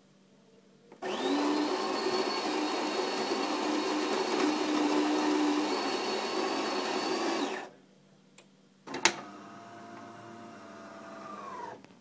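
De'Longhi Magnifica bean-to-cup coffee machine's built-in grinder grinding beans for about six and a half seconds after a button press, then a sharp clunk and a quieter motor hum that drops in pitch and stops near the end as the machine moves on to brewing.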